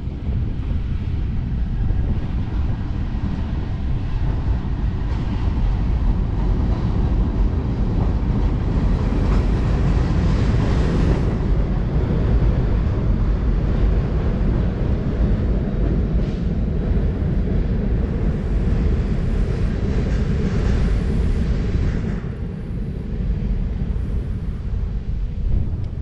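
Freight train crossing a steel railroad bridge: a steady low rumble that dips briefly about 22 seconds in.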